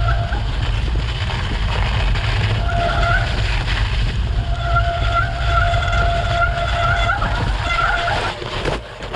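Bicycle riding over a snowy track, with heavy wind buffeting on the microphone and tyre rumble, and a bike's brakes squealing on and off in a steady high tone through most of it.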